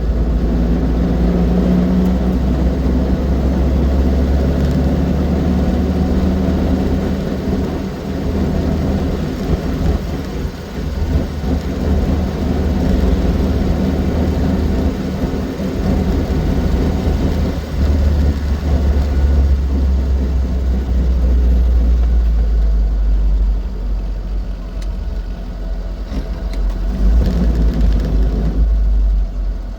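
Austin 7 Ruby's small four-cylinder side-valve engine running on the road, with a heavy low rumble. The engine note eases off twice and picks up again.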